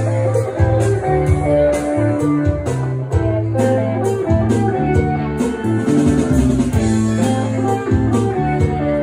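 A live band playing: electric guitar over keyboard, with a low bass line and a drum kit keeping a steady beat with cymbal hits.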